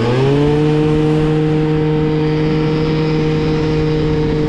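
Moped scooter engine running at speed: its pitch climbs briefly as it accelerates, then holds one steady high note under sustained throttle.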